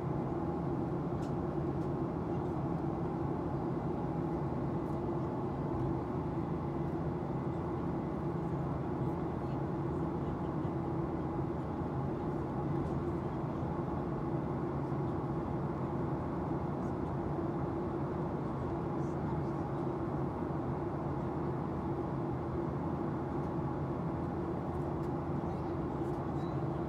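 Steady cabin drone of a Boeing 737-800 climbing after takeoff: its CFM56-7B turbofan engines and the rush of air along the fuselage, heard inside the cabin as an even roar with a constant low hum.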